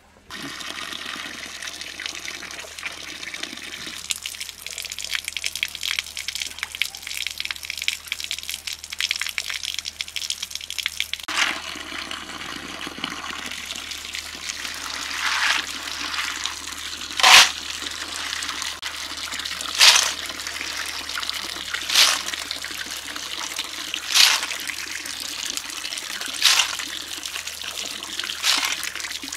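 Water running from an outdoor tap into a metal basin as water snails are washed by hand. From about halfway through there is a louder swish of water roughly every two seconds as the snails are scrubbed and sloshed in the basin.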